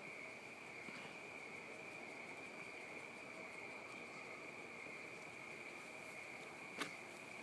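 A faint, steady, high-pitched whine or trill held on one pitch, with a single sharp click near the end.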